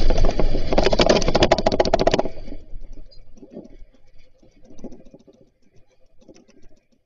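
A house shaking in an earthquake, with a low rumble and loud, rapid rattling and clattering of doors and loose objects. It dies away about two seconds in to faint, scattered rattles and knocks as the shaking stops.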